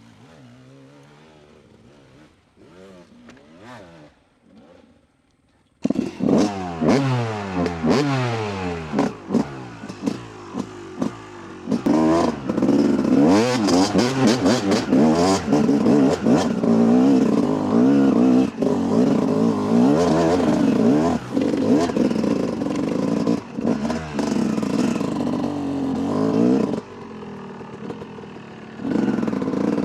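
A dirt bike engine revs up and down at a distance. About six seconds in, a much louder, close two-stroke dirt bike engine, the Yamaha YZ250, starts revving hard. Its pitch climbs and drops again and again, with clatter and knocks from the bike working over rough, loose ground.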